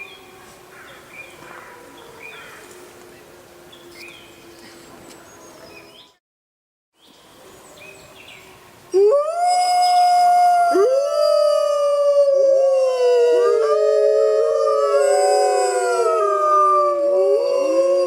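Wolves howling: faint, long howls at first, broken by a second of silence. From about halfway through, a loud chorus of several wolves howls together in overlapping, rising and falling pitches.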